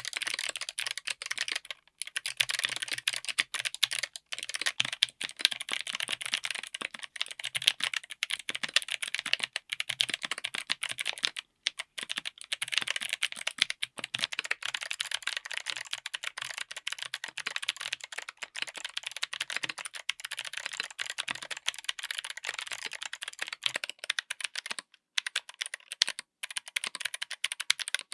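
Fast, continuous typing on a mechanical keyboard fitted with clicky switches: each keystroke gives a sharp click. The typing pauses briefly about 2, 11 and 25 seconds in.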